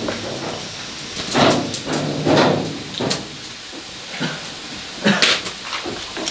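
Cleaver chopping through a boiled chicken onto a wooden chopping block: several separate heavy chops spaced unevenly, over a steady hiss.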